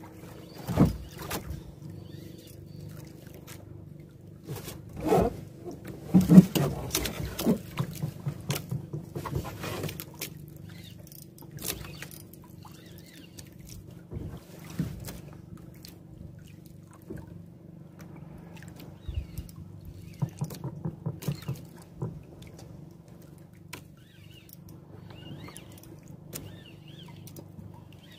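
Steady low hum of a boat engine, with scattered knocks and clicks on the boat as a jigging rod and spinning reel are worked. The knocks are thickest and loudest about five to eight seconds in.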